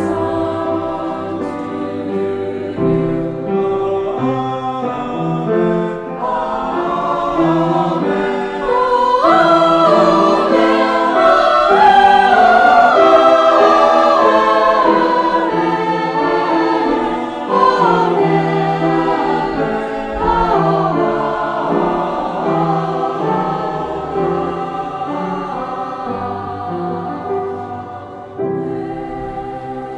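Choir singing, swelling to its loudest in the middle and softening toward the end.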